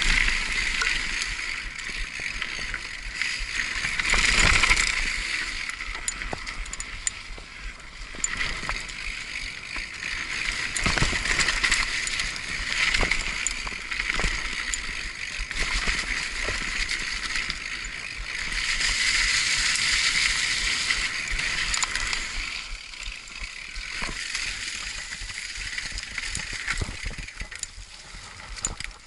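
Mountain bike riding down a dirt forest trail: tyres rolling over the ground with frequent sharp clicks and rattles from the chain and frame over bumps. A rushing hiss swells and fades a few times as the speed changes.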